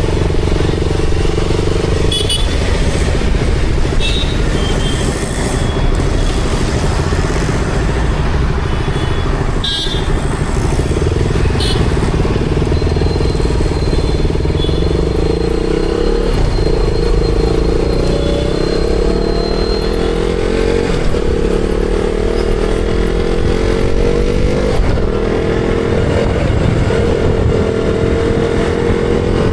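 KTM Duke 200's single-cylinder engine running under way at fairly steady revs, its pitch rising gently later on, with road and wind noise beneath and a few short sharp sounds from the traffic around.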